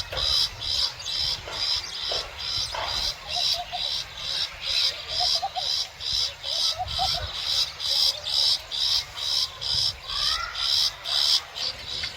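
Animal chirping in a steady, regular rhythm, a high-pitched pulse about three times a second. A few short, faint rising whistles come in near the end.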